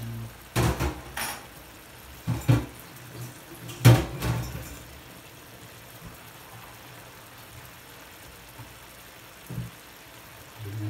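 Cod fillets simmering in a watery tomato broth in a frying pan, a steady low bubbling. Several sharp knocks and clatters come in the first four seconds, and one softer knock near the end.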